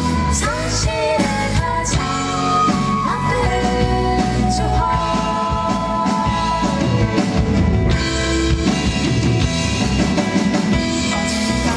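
Live band music with a sung melody: held, gliding vocal notes over guitar and drums.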